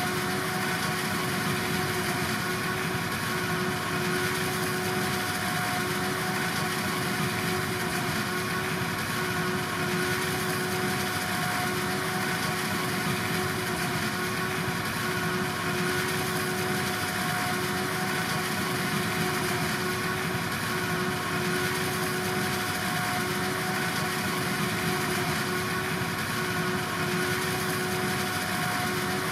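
Silage-harvest farm machinery running steadily: a diesel engine note with a constant whine held at one pitch.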